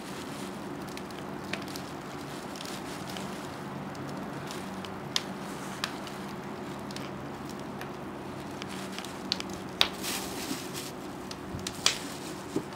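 Handling noise from wire being twisted tight with pliers to lash a goat carcass to a spit: plastic sheeting crinkling, with a few sharp clicks of wire and tool, the loudest about ten and twelve seconds in. A steady low hum runs underneath.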